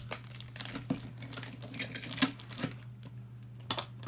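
Hands rummaging through a box of small plastic toys: irregular crinkling and light clicks, with a sharper knock about two seconds in, over a steady low hum.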